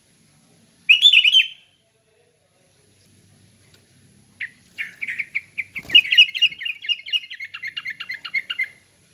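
Sooty-headed bulbul (kutilang) singing in the open, carrying 'ngeplong' style: a short chirpy phrase about a second in, then a long run of rapid repeated notes from about halfway until near the end.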